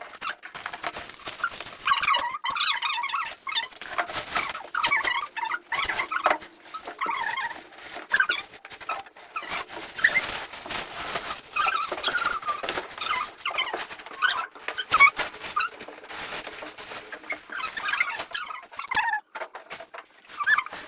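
Packaging being handled and pulled off a new washing machine: irregular squeaks, as of foam packing rubbing, mixed with rustling and light knocks.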